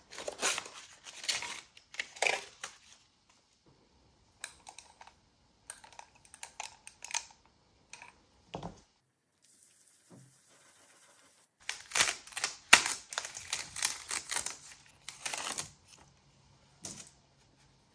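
Light clicks, taps and rustles of craft supplies being handled: ink swatch cards slid in and out of a card box, plastic-handled ink blending tools clacking together in a glass jar, and a plastic stencil picked up. The clicks come in two busy clusters with a sparser stretch between them.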